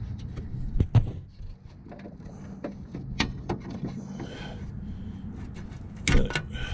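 Plastic clicks, knocks and scraping as a stock fog light bulb is twisted and worked out of its socket in the housing. Sharp knocks come about a second in and around three seconds in, with a louder cluster near the end, over a steady low hum.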